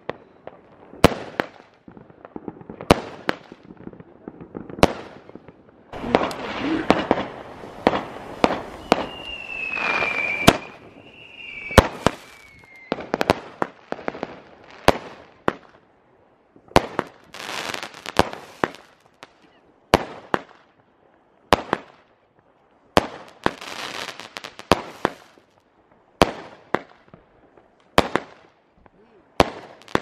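Fireworks rockets going off: sharp bangs every second or two, with hissing and crackling between them. About ten seconds in, two falling whistles are heard.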